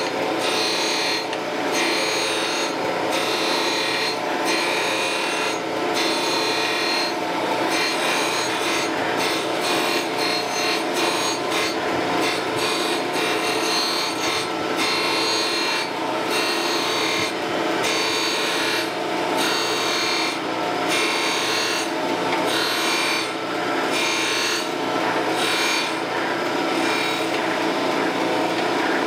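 Surface grinder's abrasive wheel grinding the brazed-on face of a brake valve part flat, over the steady hum of the wheel spindle. The grinding comes and goes in repeated passes as the table carries the part back and forth under the wheel.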